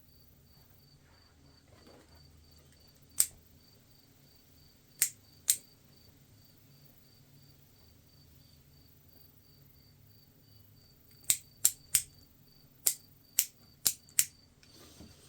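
Sharp metallic clicks as a jumper wire is touched against the scooter's wiring connections: one about three seconds in, two around five seconds, then a quick run of seven near the end. A faint high-pitched chirp repeats steadily underneath, about three times a second.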